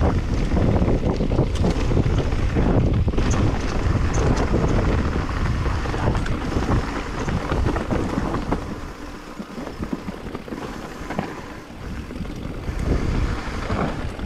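Wind buffeting the microphone with tyre rumble and rattling knocks as a Specialized Turbo Levo e-mountain bike descends a leaf-covered dirt singletrack. The rush eases for a few seconds past the middle, then builds again near the end.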